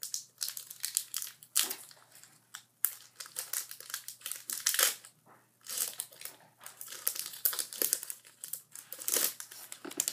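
Foil wrapper of a Pokémon trading card booster pack crinkling in irregular bursts as it is handled and opened.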